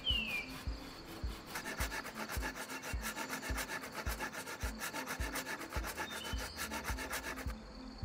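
Bow saw cutting through a felled log, a rapid rasping back-and-forth that starts about a second and a half in and stops shortly before the end. Background music with a steady low beat runs underneath, and a bird gives one falling chirp at the very start.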